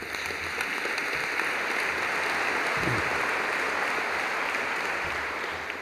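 Audience applauding, building up quickly, holding steady, then dying away near the end.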